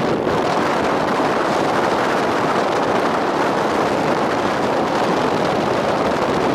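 Steady wind rushing over the microphone of a camera on a moving motorcycle, mixed with the bike's running noise, at an even level throughout.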